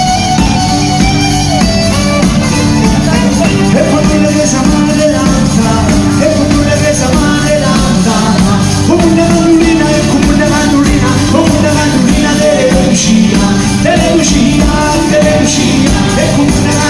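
Live Salentine pizzica band: tamburelli frame drums beating a steady driving rhythm with violin, accordion and guitar, and voices singing over them.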